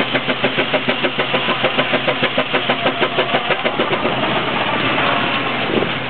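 A 20 hp Sawyer Massey steam traction engine working, its exhaust beating evenly at about four chuffs a second. After about four seconds the beat gives way to a steadier rushing sound.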